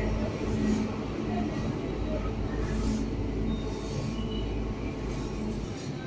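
Diesel engines of an Apollo asphalt paver and a tipper truck running steadily as the paver lays bitumen mix. The deep rumble drops away near the end as the truck pulls off.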